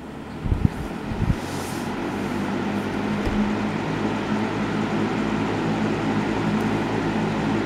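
Galaxy box fan switched on at low speed: its motor hum and the rush of air build up over the first few seconds as the blades spin up, then run steady. A few sharp knocks in the first second and a half.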